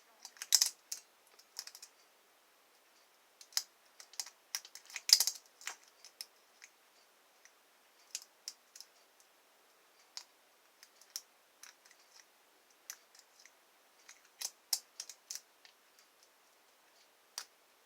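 Metal lock pick and tension wrench working the pin tumblers of a lock: irregular small clicks and scrapes, with louder rattling clicks about half a second and five seconds in. The lock's new pins are sticking as they are set.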